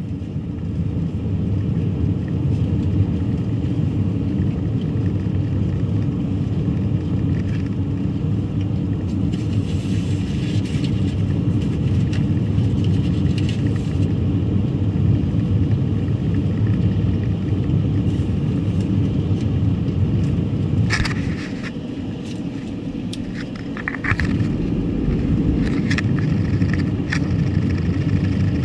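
Car on the move: a steady low road and engine rumble that eases off for a few seconds about three quarters of the way through, with a few short sharp clicks or taps.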